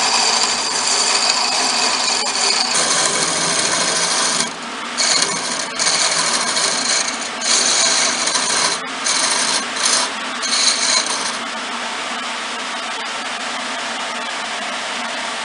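Wood lathe spinning a thin wooden pin while a hand-held turning chisel cuts it: a loud scraping hiss, broken by several short pauses as the tool lifts off. About eleven seconds in the cutting stops, and the lathe runs on alone with a steady, quieter sound.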